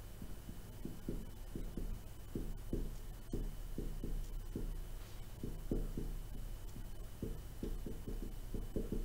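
Marker writing on a whiteboard: a string of short, dull taps and strokes, two or three a second and unevenly spaced, over a steady low hum.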